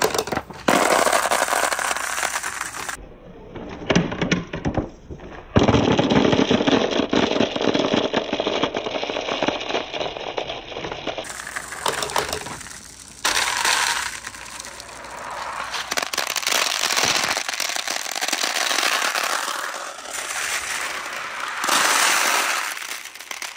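Many glass marbles clattering and clicking against each other as large balls roll through a tray packed with them, in several stretches with short lulls between.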